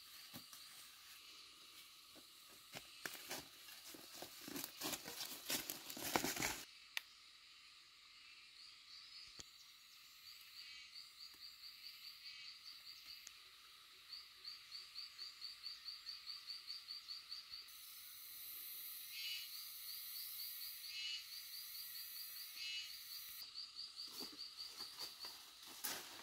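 Rustling and crackling of dry leaves and undergrowth underfoot for the first six or so seconds, the loudest part. Then a forest background of high chirping calls repeated rapidly, about five a second, in trains of a few seconds each over a steady high hiss.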